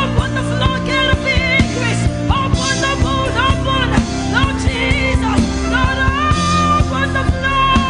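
A gospel worship song: a singing voice with vibrato over a band with drums, keyboard and guitar.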